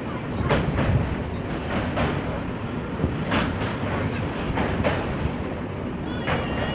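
Passenger train running along the track, heard from on board: a steady rumble of the coach wheels on the rails with irregular knocks from rail joints, and a faint high-pitched squeal near the end.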